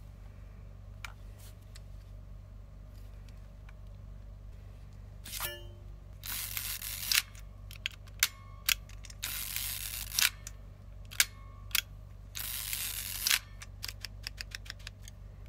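Hasselblad 905 SWC camera mechanisms being worked by hand. Three winding noises of about a second each alternate with sharp single shutter clicks. Near the end comes a quick run of small detent clicks, about six a second, as a lens ring is turned.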